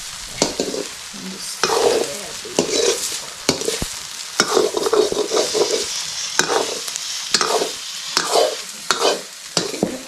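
Food stir-fried in a kadai (wok), sizzling, with repeated scraping strokes of stirring against the pan at about two a second.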